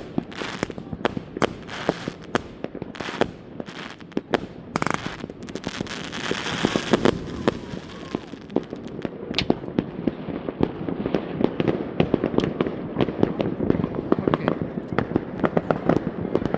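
Consumer fireworks cake firing its shots in turn: sharp bangs about one or two a second, a hiss about five to seven seconds in, then dense rapid crackling of many small pops from about eight seconds on.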